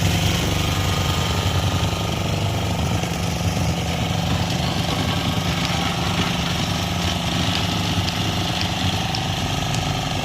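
Road roller's engine running steadily, a low continuous hum with a fast pulsing rattle.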